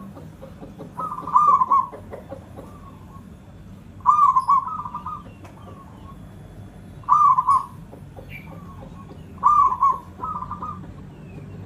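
Local Javanese zebra dove (perkutut) cooing: a short rolling coo phrase repeated about every three seconds, four times, some phrases with a brief second part.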